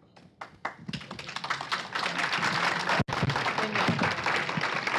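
Audience applause: a few scattered claps that fill in to steady clapping from a crowd.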